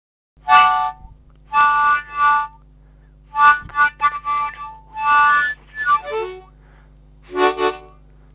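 Harmonica played in short, loud chord blasts with gaps between them, then a few notes sliding downward and some lower chords near the end. A steady low electrical hum starts with it about half a second in.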